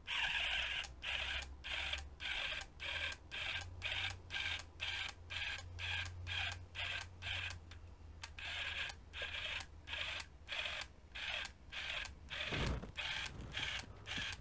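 A small Actuonix P16 linear actuator's geared motor whines in short bursts, about two a second, as it is rocked on and off by its switch. It drives the caulking gun's plunger. It is a 12 V actuator run on a 9 V battery, so it struggles a bit under the load of pushing out the caulk.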